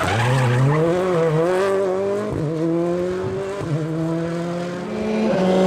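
Rally car engine accelerating hard out of a bend and away. Its note climbs and drops back at each of about four quick upshifts.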